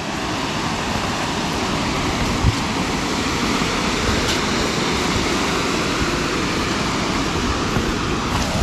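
Steady rush of a rain-swollen waterfall, with one brief thump about two and a half seconds in.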